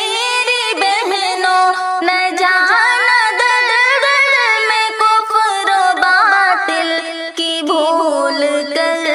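A woman singing an Urdu nazm in long held notes that bend and waver in pitch.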